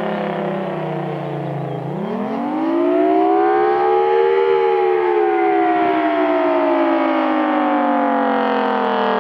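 Federal Signal Thunderbolt 1000T siren sounding the attack signal, a wavering wail. Its pitch falls to a low about two seconds in, rises to a peak around four and a half seconds, then slowly falls again.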